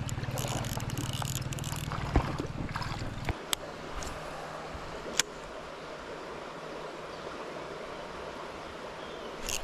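Small stream running steadily, with a few sharp clicks. A low rumble stops abruptly about three seconds in.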